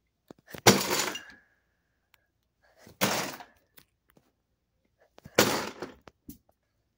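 Three short thuds, each about half a second long, coming about two and a half seconds apart.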